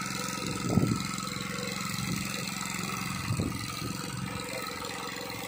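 Fishing launch's engine running steadily at idle, an even mechanical hum.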